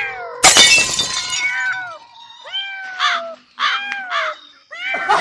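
A loud crash like something breaking about half a second in, among a run of short cat meows, about five in all.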